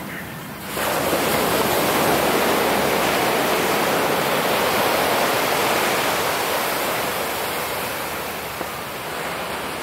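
Ocean surf: a wave breaking and washing up the beach, a loud rush of water that starts suddenly about a second in and slowly fades over the last few seconds.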